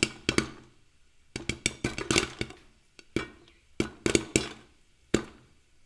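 Plastic spice shaker being shaken and tapped over a bowl, giving several short clusters of sharp clicks and knocks about a second apart.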